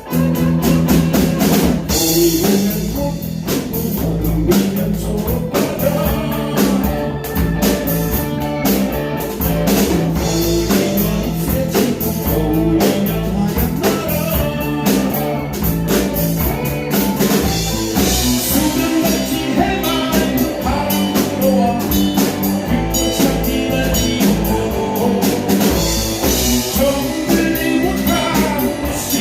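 Band music with a drum kit keeping a steady beat under guitar and other instruments.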